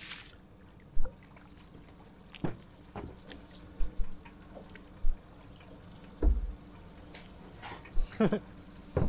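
Water splashing and dripping as a large squid is reeled up and lifted from the sea on a lure, with scattered sharp knocks from the tackle and boat.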